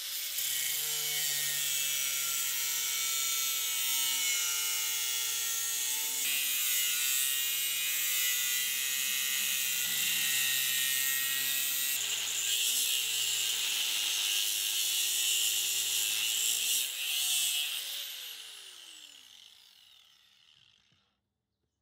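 Corded DeWalt angle grinder with a thin cut-off disc cutting through steel held in a vise, its whine shifting in pitch as the load on the disc changes. About eighteen seconds in it is switched off and winds down, falling in pitch to silence.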